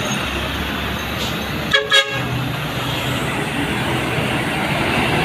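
Steady running noise of an Isuzu FVR bus's diesel engine and road, with two quick toots of a vehicle horn about two seconds in.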